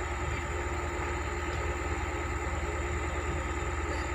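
Heavy excavator diesel engine running steadily, with an even low throb and a faint steady whine.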